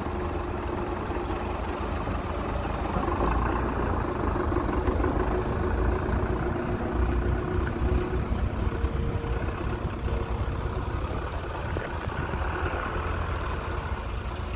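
Massey Ferguson 240 tractor's three-cylinder diesel engine running under heavy load as it pulls a loaded soil trolley, getting a little louder about three seconds in.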